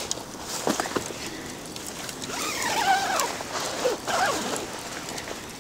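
Person climbing into a nylon Mobi Garden tent: a couple of soft knocks, then the tent's zipper pulled in two strokes, a rasping sound that wavers in pitch with the pull.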